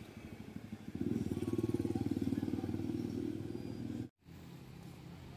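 A motorcycle engine running close by, getting loud about a second in with a fast pulsing beat, then cut off suddenly near the end, after which a quieter steady low engine hum carries on.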